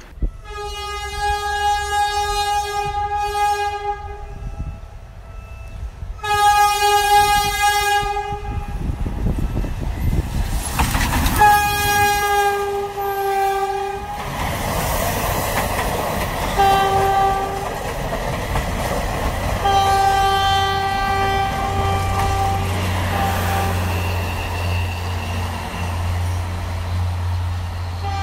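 Diesel train horns sounding in a series of long, steady blasts, several seconds each, as Philippine National Railways trains approach and pass. Between blasts there is the rumble and rail noise of a passing train, and a low diesel engine drone runs under the horn toward the end.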